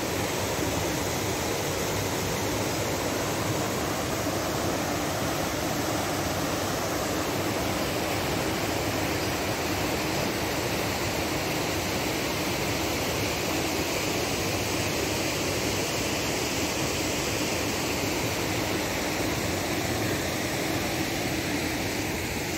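Steady, even rushing noise that holds at one level throughout, with no distinct events.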